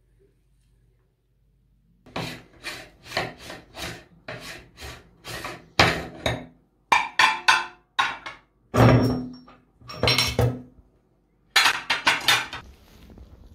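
Knocks and clanks of a metal meat grinder being taken apart, starting about two seconds in: a steady run of taps, then louder clanks with some metallic ringing as its ring, cutting plate and auger come off and are set down.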